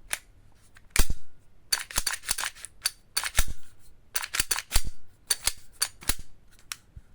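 Airsoft pistol slides being racked by hand: a series of sharp plastic-and-metal clacks as each slide is pulled back and snaps forward, coming in small clusters every second or so.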